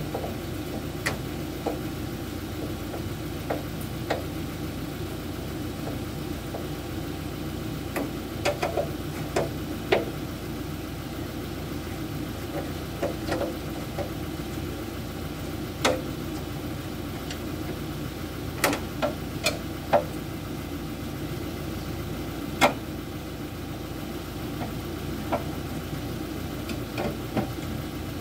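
Scattered sharp metallic clicks and knocks at irregular intervals from hand tools working on the header of a Kubota DC70 combine harvester. They sound over a steady engine hum.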